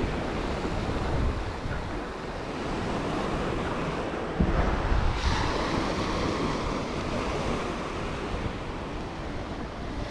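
Small waves breaking and washing up a sandy beach, with wind buffeting the microphone in a steady low rumble. About halfway through, a louder wash of surf hisses up the sand.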